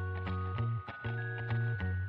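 Background music with a steady beat and held bass notes.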